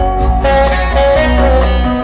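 Live rock band music: long held melody notes over a steady bass.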